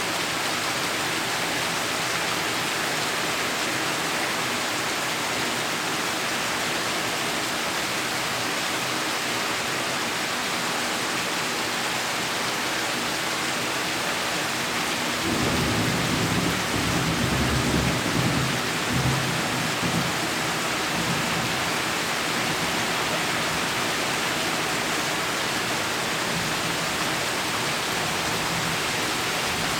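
Heavy rain pouring steadily. About halfway through, a deep rumble of thunder comes in suddenly, rolls for about five seconds and fades back under the rain.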